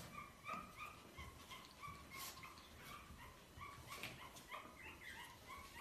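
Young puppies whimpering and squeaking faintly while they nurse, in many short high squeaks of about two to three a second, with a few soft clicks among them.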